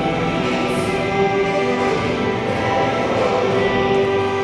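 Music with long held notes over a steady, full texture.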